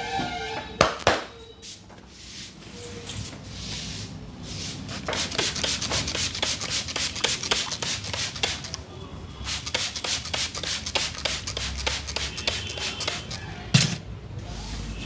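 A barber's hands rubbing quickly and rhythmically over skin and hair during a massage, many strokes a second in two long runs. A couple of sharp smacks come about a second in, and a single loud thump near the end.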